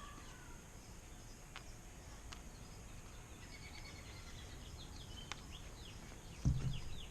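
Songbirds chirping faintly in repeated short phrases, with a few faint clicks and one low thump near the end, the loudest sound.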